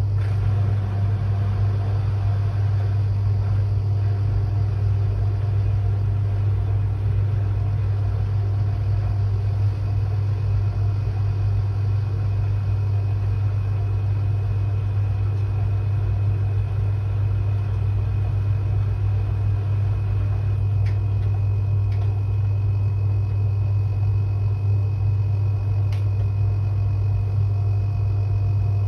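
Washing machine running on a quick 30 °C wash, a steady, unchanging low hum.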